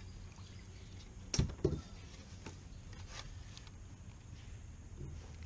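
Two quick knocks about a second and a half in, from a plastic fish-measuring board being handled and set down in a kayak with a caught bass, amid faint rubbing and handling noise.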